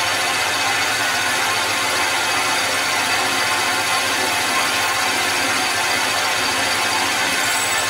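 Metal lathe running steadily as a twist drill is fed into the spinning workpiece, drilling a hole through it.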